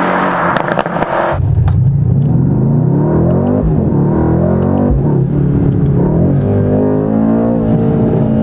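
Mercedes-AMG C63 Coupé's 4.0-litre twin-turbo V8 pulling hard under acceleration, its pitch rising and falling back several times. It opens with a loud rushing noise over the engine that cuts off suddenly about a second in.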